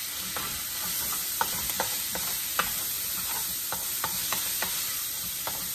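Chicken and vegetable stir fry sizzling steadily in a hot metal wok as it is stirred with a spatula, with about a dozen irregular clicks of the spatula against the pan.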